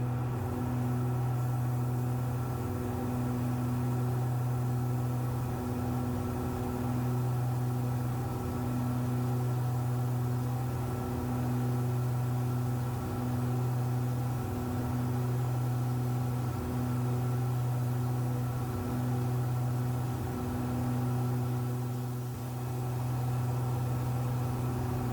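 Steady drone of a pressurized Cessna Skymaster's front and rear piston engines and propellers heard from inside the cabin in flight. The drone swells and dips every couple of seconds as the two engines beat against each other.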